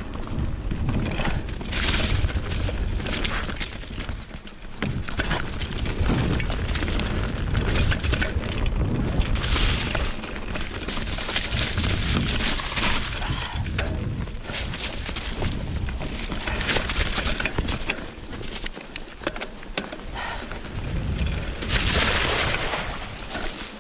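Mountain bike descending a dirt trail covered in dry leaves: tyres rolling and crunching over leaves and dirt, the bike rattling and knocking over bumps, with wind rumbling on the microphone. The noise surges and falls with speed and terrain, loudest about two seconds in, through the middle, and again near the end.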